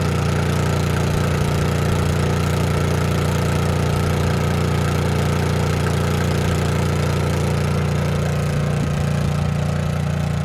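Honda EU2000i inverter generator running steadily, a constant engine hum that holds the same pitch and level throughout.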